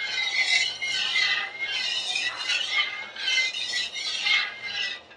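Metal ladle scraping round the bottom of a metal kadai as thin kadhi batter of buttermilk and gram flour is stirred, about seven even strokes in five seconds, stopping just before the end. It is kept stirring until it boils so that the kadhi does not split.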